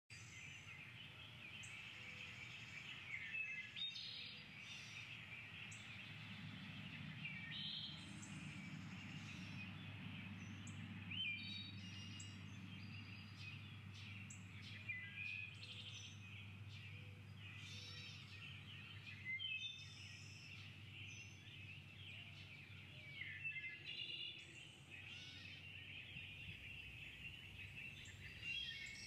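Birds chirping and singing: many short, scattered calls over a steady high hiss, with a faint low hum that fades out near the end.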